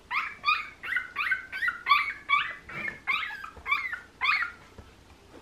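A 12-day-old cocker spaniel puppy crying: about a dozen short, high-pitched squeals in quick succession, which stop about four and a half seconds in. The owner takes the crying as the puppy wanting its mother.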